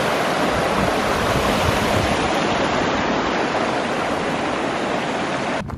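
Rushing water of a rocky mountain stream tumbling over boulders, a steady loud rush that cuts off suddenly near the end.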